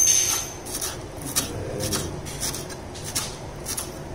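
Kitchen knife chopping fresh coriander leaves on a wooden cutting board: short crisp cuts, roughly two a second at an uneven pace.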